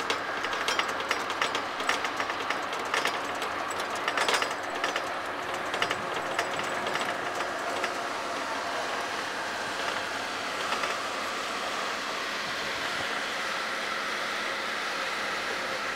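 Clattering rattle and steady rolling noise of a ride over rough, rutted dirt; the rattling is dense for the first five or six seconds, then thins out and leaves a steady rushing noise.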